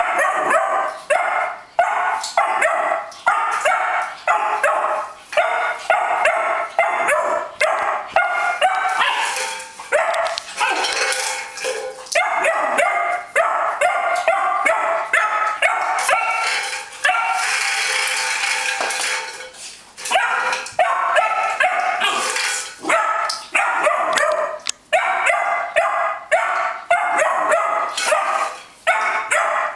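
A young beagle barking over and over in quick, high-pitched yaps, with only brief pauses. It is frustration barking at a tin holding a liver treat that he cannot get open.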